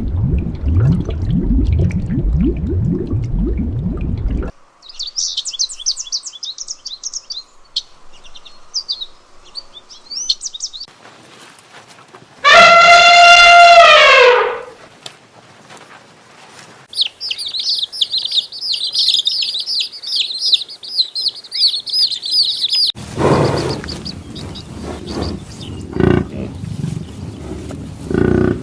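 A run of animal sounds. It opens with low, rough pulsing. High bird chirps follow, then a loud, clear call of about two seconds that drops in pitch at the end, then more dense bird chirping, and finally low, rough sounds again.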